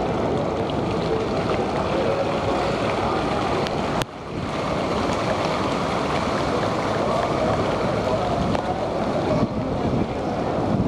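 Steady rushing ambient noise with a faint murmur of distant voices, broken by a sharp click and brief dip about four seconds in.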